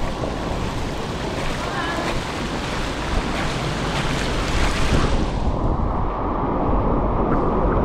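Strong typhoon wind buffeting the microphone with a deep rumble, over a rushing hiss that falls away about five seconds in.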